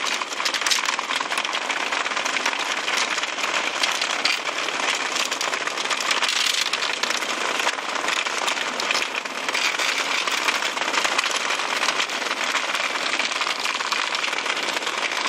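Several Hexbug Nano vibrating toy bugs buzzing and rattling against a plastic habitat set: a steady, dense crackling rattle made of countless fine ticks.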